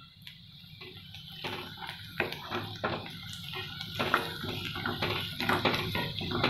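Chopped onion sizzling in hot oil in a non-stick kadhai, with a wooden spatula scraping and knocking against the pan as it is stirred, irregularly and more briskly from about a second and a half in.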